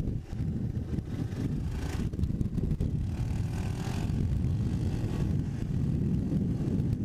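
Honda ATC250SX three-wheeler's engine running steadily while riding along, with gusts of wind noise on the microphone.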